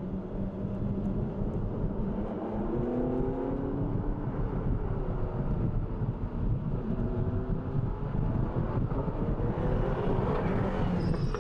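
McLaren MP4-12C GT3 race car's twin-turbo V8 accelerating, its engine note rising through the gears, then growing stronger as the car passes close by near the end.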